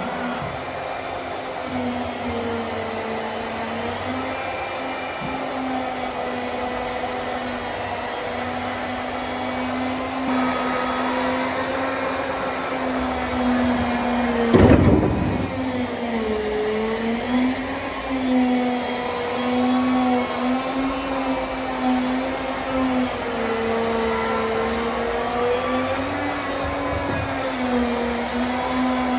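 Hydrogen-powered excavator's driveline running under test: a steady machine whine whose pitch dips and rises again and again as the load changes, with one loud thump about halfway through.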